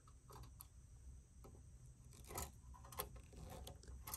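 Faint, scattered clicks and light scrapes of metal amplifier chassis parts being handled as the front deck is fitted in place for screwing down.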